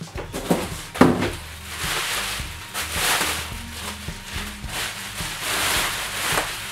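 Plastic bubble wrap rustling and crinkling in repeated surges as it is handled and pulled off a compound bow, with two sharp knocks about half a second and a second in.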